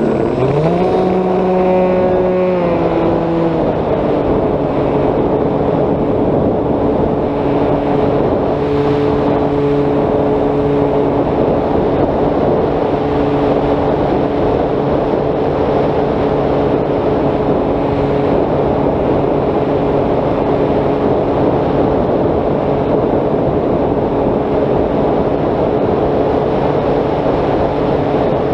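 Brushless electric motor and propeller of an RC foam airplane (Turnigy 3542 motor turning a 10x7 prop), heard through the onboard camera with wind rushing over the airframe. The motor's pitch climbs quickly as the throttle comes up for takeoff, eases back about three seconds in, then holds a steady drone.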